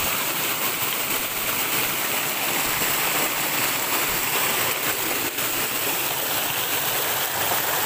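Stream water rushing and splashing over rocks in a small cascade, a steady, even rushing noise.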